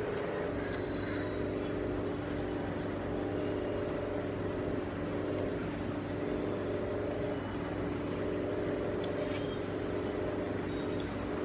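A motor running steadily at one constant pitch, with a few faint ticks over it.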